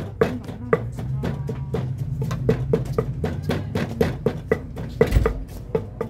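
Wooden pestle pounding green papaya salad in a clay mortar: rapid, even knocks about four a second, with one heavier thump about five seconds in.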